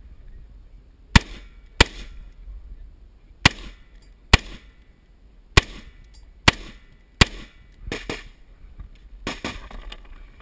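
Semi-automatic H&K MR223 .223 rifle firing seven sharp, unevenly spaced shots as the shooter engages targets through a wall port, followed by a few softer reports near the end.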